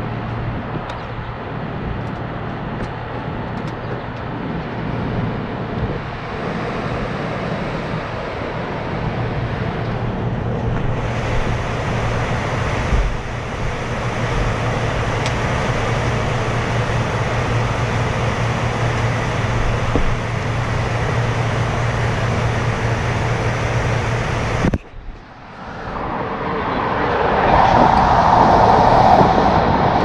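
Rooftop air-conditioning equipment running: a steady mechanical rush with a constant low hum. About 25 seconds in it cuts out abruptly, then a louder rush builds again.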